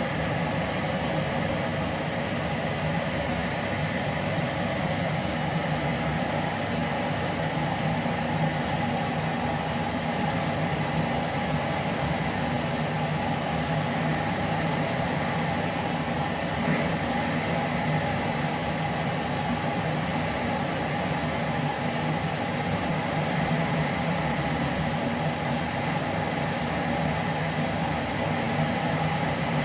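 Vacuum cleaner running steadily at full suction: a constant rushing hum with a thin high whine on top.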